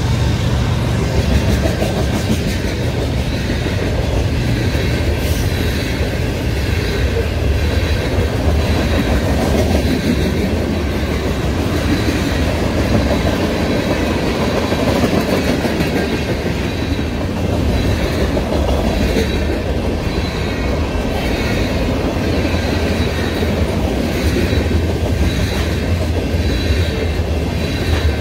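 Freight train of tank cars and covered hoppers rolling steadily past close by, a loud, even running noise of wheels on rail.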